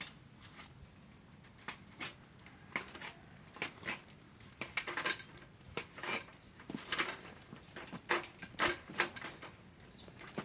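Irregular metallic clinks and taps from repair work on a greenhouse's steel pipe frame, with a dozen or more separate knocks coming unevenly.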